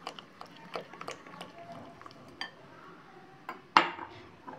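A spoon stirring thick semolina batter in a glass bowl, with scattered soft clicks of the spoon against the bowl and one sharp clink near the end.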